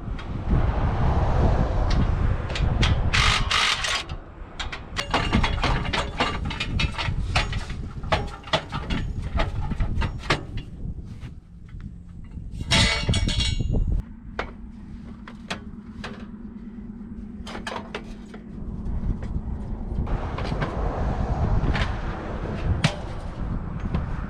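Hand tools working on a side-by-side's exhaust: irregular metallic clicks and knocks, with a brief dense rattle about halfway through. A steady low hum runs for several seconds after that.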